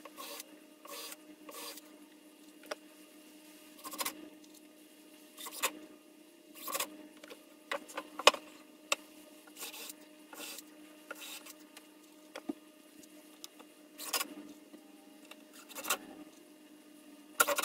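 Wooden deck and fence boards of a washer-toss box being knocked and handled on a workbench, with short bursts from a cordless drill driving screws into the floorboards. The knocks and clatters come at irregular intervals over a faint steady hum.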